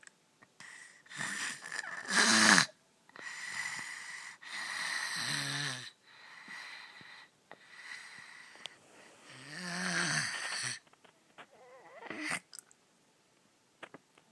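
Snoring: a series of loud, noisy breaths every few seconds with quiet gaps between, some with a low buzz, the loudest about two seconds in.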